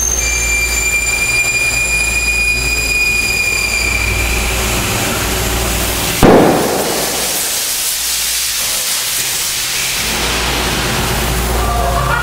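A plastic coolant jug bursts with a single sharp, loud bang about six seconds in, over steady workshop hum and hiss.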